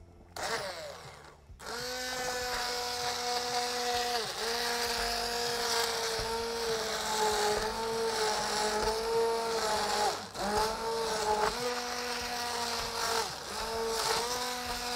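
Hand-held immersion blender switched on about two seconds in, its motor running with a steady whine while puréeing cooked cucumber soup in a pot. The pitch dips briefly a few times, almost stopping about ten seconds in.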